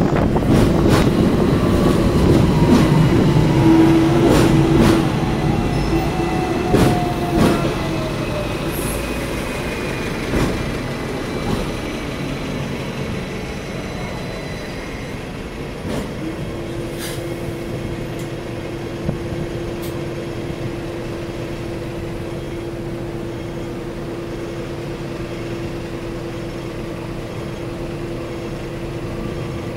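Hong Kong double-decker electric tram slowing to a stop: the motor whine falls in pitch over the first several seconds as it brakes, with a few sharp clicks from the wheels on the rails. Then it stands with a steady hum.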